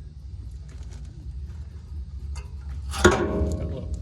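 A sharp metallic clank about three seconds in that rings briefly with several tones, a metal tool or part striking or being dropped on metal, over a steady low rumble.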